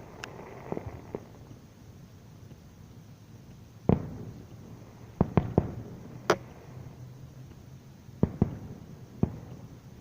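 Aerial fireworks shells bursting at a distance: about ten sharp booms and cracks at irregular intervals, several in quick succession around the middle, each with a short echoing tail.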